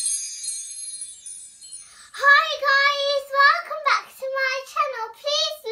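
Tinkly, chime-like intro music fading out over the first couple of seconds. From about two seconds in, a young girl sings in a high voice with long, fairly level notes.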